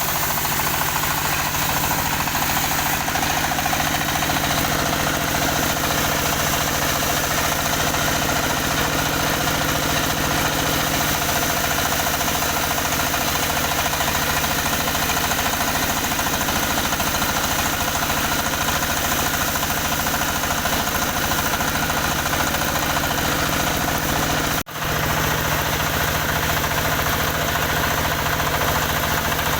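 Engine of a wood-cutting saw running steadily at an even speed, with a brief break about 25 seconds in.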